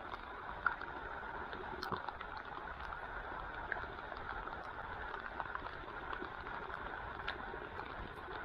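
Flowing creek water: a steady rushing with a few faint ticks.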